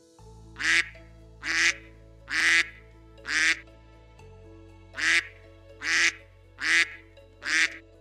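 Duck quacking: eight loud, short quacks in two groups of four, a little under a second apart, with a brief pause between the groups. Soft background music with sustained notes plays underneath.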